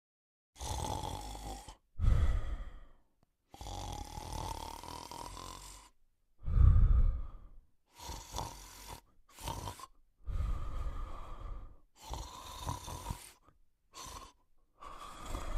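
A sleeping dog snoring: about ten rasping snoring breaths of a second or two each, many with a whistling nasal note, two of them much louder than the rest.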